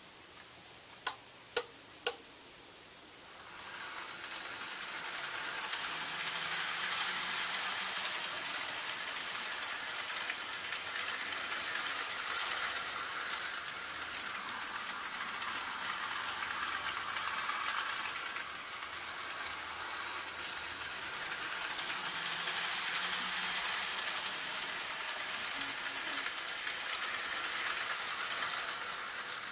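Three sharp clicks, then an N gauge model train running on the track: a steady rattling hum of its small motor and wheels on the rails, swelling louder twice.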